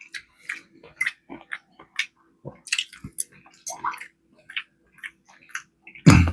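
Close-miked wet chewing and lip-smacking while eating cornbread and greens: a run of irregular moist clicks and squishes, ending in a brief louder hummed 'mm' just after six seconds.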